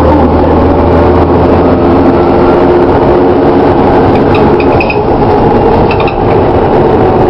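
DAF DB250LF bus's diesel engine and three-speed Voith automatic gearbox running, heard from inside the passenger saloon as a loud, steady drone with a low hum and several steady tones above it. A few brief high-pitched chirps come about four and a half seconds in.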